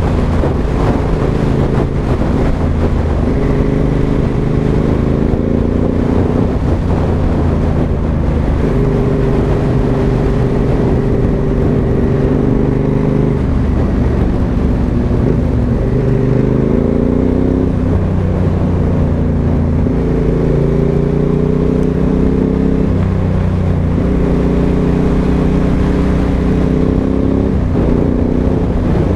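Aprilia Dorsoduro 1200's V-twin engine with a Pipeworx exhaust, heard on the move. The engine note climbs and then drops sharply several times as the revs rise and fall.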